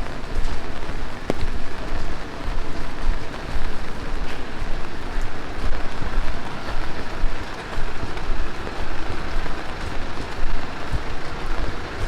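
Heavy rain pouring and splattering on surfaces, with a few sharper drop ticks and an uneven low rumble underneath.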